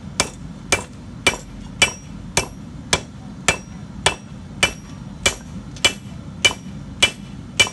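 Hand hammer striking red-hot 1084 high-carbon steel on an anvil in a steady rhythm of about two blows a second, each blow with a short metallic ring. This is the bladesmith drawing out a narrow tang.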